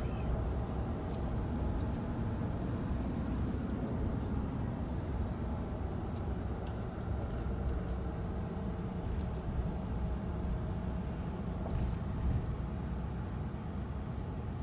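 Steady low road and engine rumble heard from inside a moving car's cabin, with a few faint ticks.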